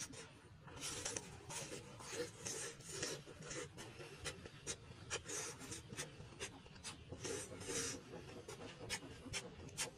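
Close-up chewing of a cooked giant water bug, with many small crisp crackles in an irregular run.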